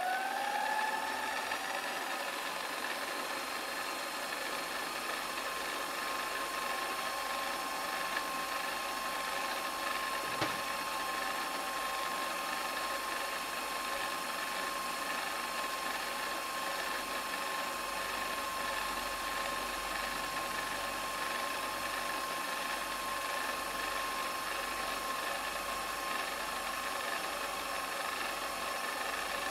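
Milling machine spindle running at a steady pitch, settling at full speed just as the sound begins, while an end mill cuts a slowly turning Delrin rod.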